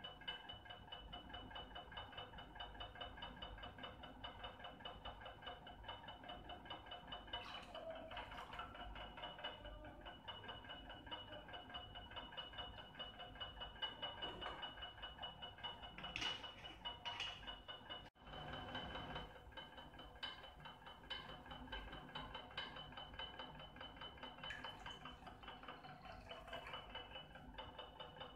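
Faint background music: a held chord with quickly repeated notes. It drops out briefly about eighteen seconds in.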